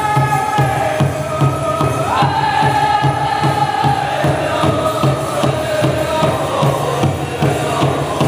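Powwow drum group singing a chicken dance contest song in chorus over a steady beat on the big drum, the melody stepping down in pitch.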